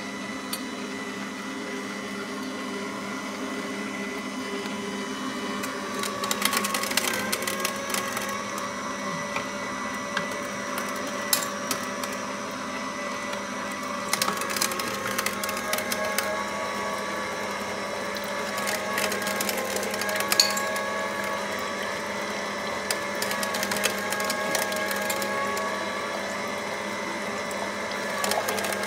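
Endever Sigma 95 slow auger juicer's motor running steadily with a whine as the auger crushes pomegranate. Irregular crackling and clicking sound over the motor from about six seconds in.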